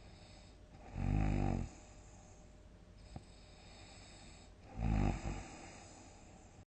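A person snoring loudly in deep sleep: two long snores about four seconds apart.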